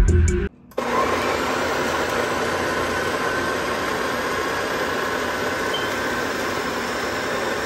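Countertop blender motor running steadily at full speed, grinding soaked peeled beans with red peppers and onions into a thick batter. It starts abruptly less than a second in.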